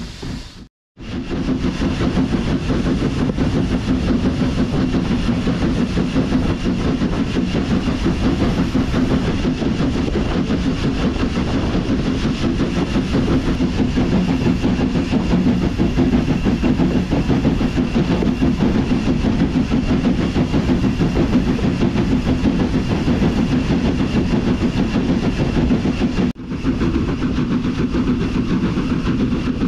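0-6-0 saddle tank steam locomotive and its carriages running along the line: a steady, loud rumble of the engine working and wheels on rail. It cuts out briefly about a second in and dips again near the end.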